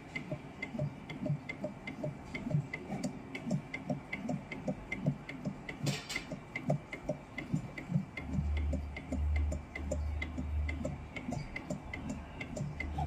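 Automatic soldering machine at work, giving a steady, even ticking of about two to three clicks a second with a low thud under each. A brief hiss comes about halfway, and a low hum pulses in a few times after about eight seconds.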